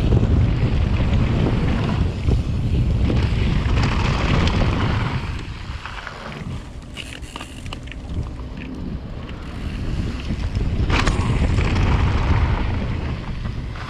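Wind buffeting the GoPro microphone as a mountain bike rolls down a gravel bike-park trail, with tyre noise on the loose surface and a few sharp clicks and clatters from the bike. The rush eases off about six seconds in and builds again a few seconds before the end.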